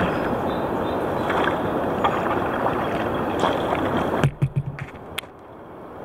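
Steady rush of river water and wind around a kayak, with small water splashes through it; the noise drops off sharply a little past four seconds in.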